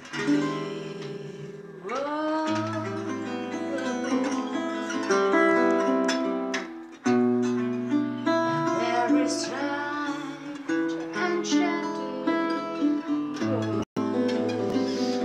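Acoustic guitar music: a slow instrumental introduction of plucked and held notes, with a brief dropout near the end.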